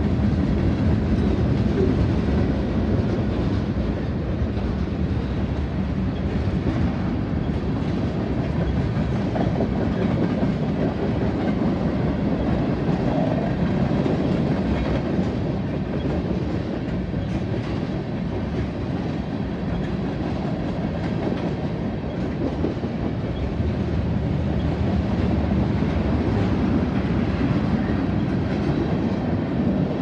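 Freight cars of a manifest train rolling past, their steel wheels making a steady rumble on the rails.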